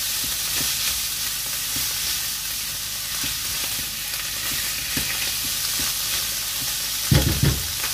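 Mushrooms, carrots and green peas sizzling in a hot non-stick frying pan while a silicone spatula stirs them, with light taps and scrapes against the pan. A few louder knocks come near the end.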